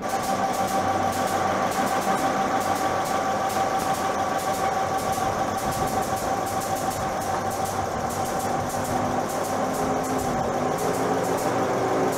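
Steady mechanical running of a train standing at a station platform, with a constant whine and fast regular ticking over it; a lower tone shifts in pitch near the end.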